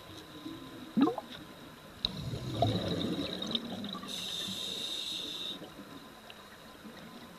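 Scuba diver breathing through a regulator, heard underwater: a short gurgle about a second in, then exhaled bubbles rumbling for a second or so, followed by the hiss of an inhalation through the demand valve.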